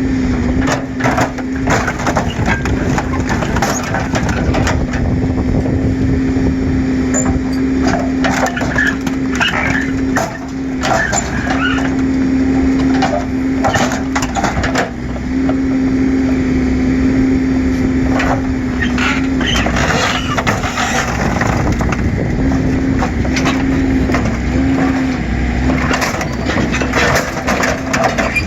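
Dodge Intrepid car body being torn and cut apart by heavy scrapping machinery: repeated crunching, cracking and snapping of metal and trim over the steady hum of the machine's engine, which shifts pitch as it works.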